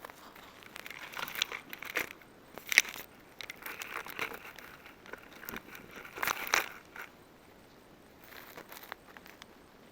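Irregular rustling and crinkling handling noises, with a sharp crack about three seconds in and a louder burst of crinkling past the middle.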